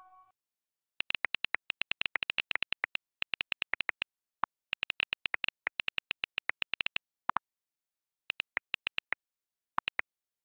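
iPhone keyboard key clicks as a message is typed, in quick runs of several clicks a second broken by short pauses, with a few deeper-toned clicks among them.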